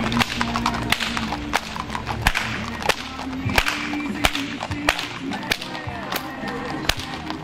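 Horsemen's whips cracking again and again, sharp single cracks about one to two a second, over faint background music.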